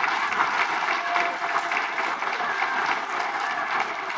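Audience applauding: a dense, even patter of many hands clapping that eases off a little toward the end.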